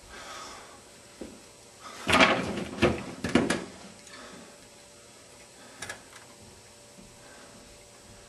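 A burst of several loud knocks and clattering strokes about two to three and a half seconds in, with single lighter knocks before and after, like a door or drawer being handled.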